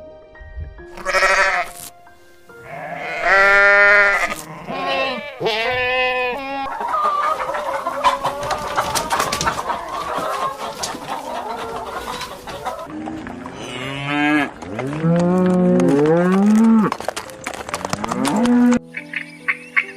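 Farm livestock calling: a series of separate bleating calls with wavering pitch, then lower, drawn-out calls with falling pitch near the end, over soft background music.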